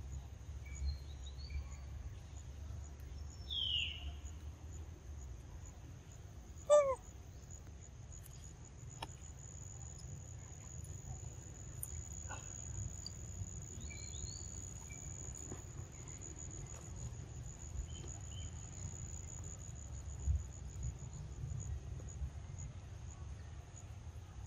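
Forest ambience: insects droning on one steady high-pitched tone, with a few short bird chirps. One short, loud call sounds about seven seconds in.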